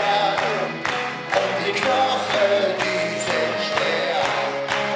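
A live rock band playing, with several men singing together into one microphone over electric guitar and a steady beat of about two strokes a second.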